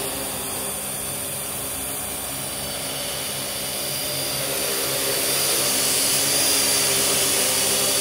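Parrot AR.Drone 2.0 quadcopter's four electric rotors whining steadily as it hovers with a 200 g test weight slung under it. The whine grows louder from about halfway through as the drone comes closer.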